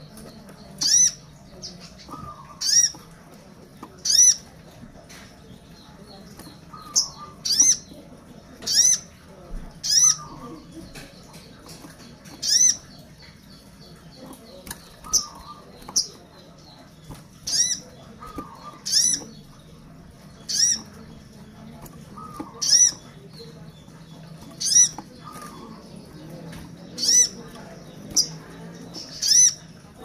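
Caged brown-throated sunbird (kolibri sogon) calling to others of its kind: loud, sharp, high single notes, one every second or two, with the flutter of its wings as it hops about the cage. A faint, steady low hum sits underneath.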